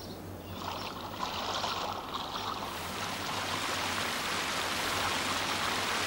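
Rushing water of a waterfall: a steady hiss that swells gradually louder over the first few seconds.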